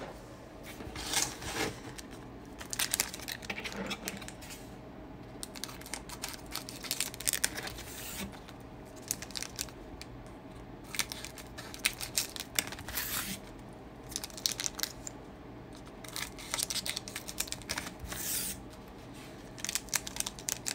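Foil wrappers of Court Kings basketball card packs crinkling as they are handled, with scissors snipping them open: irregular rustles and short crackles.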